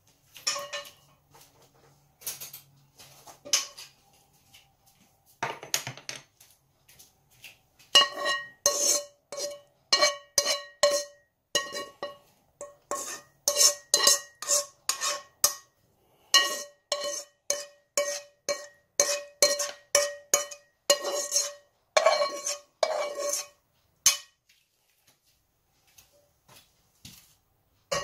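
A cooking pot and a ceramic bowl clinking as noodles and soup are scraped from the pot into the bowl. A few taps and a heavier knock come first, then a long run of ringing clinks, about two or three a second, that stops a few seconds before the end.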